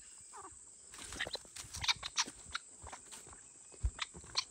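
Footsteps and light scuffs on dry dirt among grey francolins, with a few short bird calls near the start and a low thump near the end.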